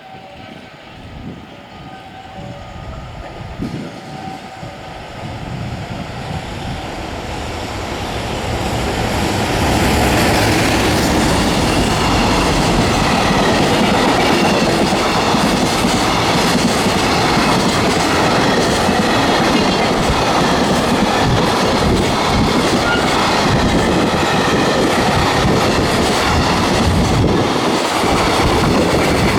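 Freight train hauled by a JR Freight EF210 electric locomotive running through a station: it grows steadily louder over the first ten seconds as it approaches, then the long string of freight wagons rolls past at a constant loud level.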